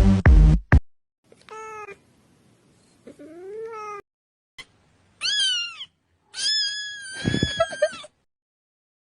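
Domestic cat meowing four times, the last meow long and drawn out. A loud music beat cuts off in the first second.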